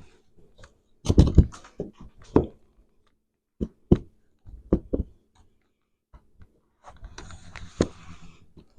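Irregular knocks and clunks, several close together a second or two in and more around four to five seconds, then a stretch of rough scraping or rubbing near the end.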